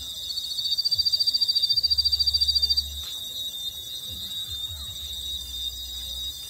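Rapid high-pitched electronic beeping, about a dozen pulses a second, that starts just after the beginning and cuts off a little before 3 seconds in. Under it a steady high whine and a low hum run on.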